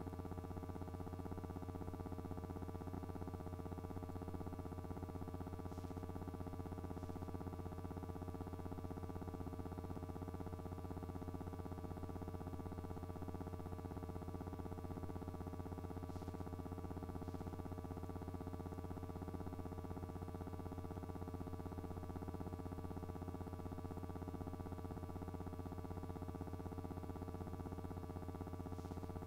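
Steady electrical hum made of several fixed pitches, unchanging throughout, with a few faint ticks.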